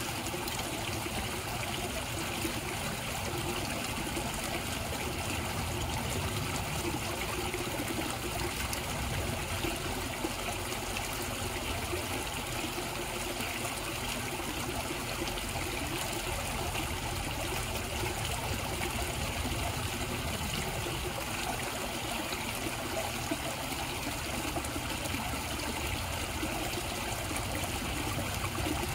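Steady trickle of running water in a backyard koi pond, an even, unbroken splashing with no other events.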